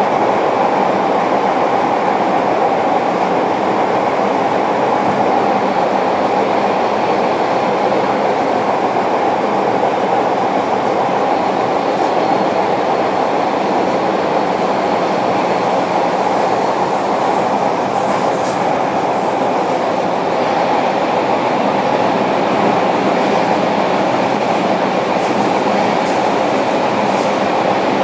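Onboard running sound of a JR Kyushu 305 series electric train, heard inside motor car MoHa 305-105 as it travels through a subway tunnel: a steady rumble of wheels on rail at an even speed, with no clear rise or fall in pitch.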